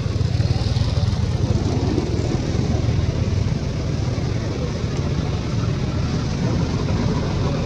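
A motor vehicle's engine running steadily, a low rumble.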